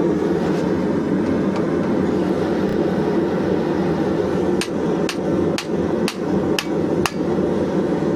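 A blacksmith's hammer striking a hot steel bar on the anvil: six sharp blows about half a second apart, starting a little past halfway. Under them runs the steady rushing noise of the forge.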